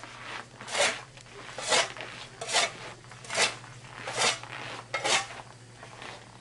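Hard-packed snow and ice being scraped off an ice slide in six short, rasping strokes, spaced evenly a little under a second apart.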